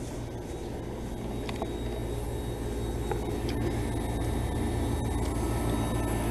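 Outdoor heat pump unit running: a steady low hum that grows gradually louder.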